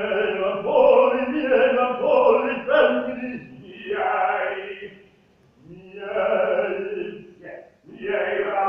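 A man singing classical, operatic phrases with long held notes, breaking off briefly about five seconds in and again near the end.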